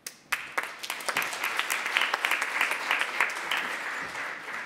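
Audience applauding. The clapping starts abruptly, builds over the first second or so, and begins to thin out near the end.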